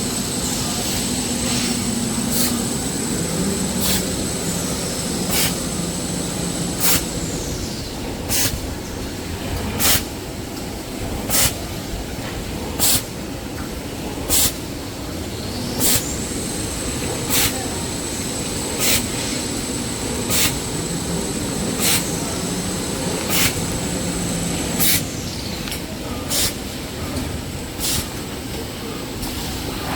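Toilet paper production line running: steady machine noise with a sharp stroke about every one and a half seconds, and a high whine that rises at the start, holds and falls off about eight seconds in, then does the same again from about sixteen seconds to about twenty-five seconds.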